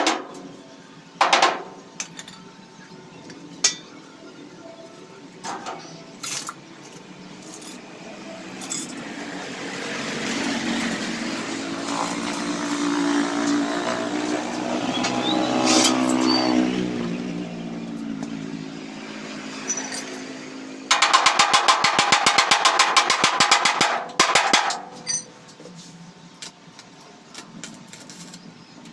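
Scattered sharp metal clinks, then a motor vehicle's engine that grows louder and fades away over several seconds as it passes. Near three quarters of the way through comes a loud, rapid, even rattling buzz for about three seconds, from an unidentified tool in the workshop.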